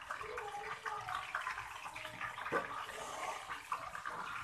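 Pork and chilies simmering in coconut-milk sauce in a pan, bubbling and sizzling steadily as the sauce reduces.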